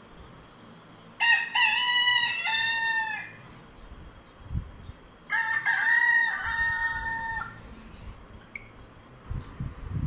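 Rooster crowing twice, each crow a long drawn-out cock-a-doodle-doo of about two seconds.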